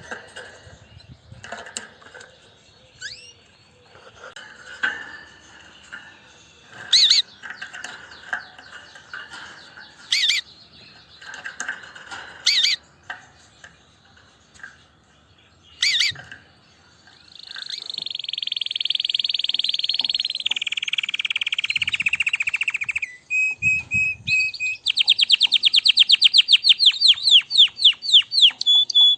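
Red factor canary chirping in short scattered notes, with a few sharp loud ones. Past the halfway point it breaks into continuous song: a long trill that drifts down in pitch, a few repeated notes, then a fast, loud rolling trill near the end.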